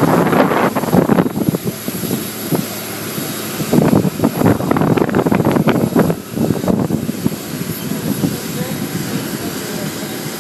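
Aircraft engine noise running steadily, with a faint high whine. Voices come and go over it, loudest in the first second and from about four to six seconds in.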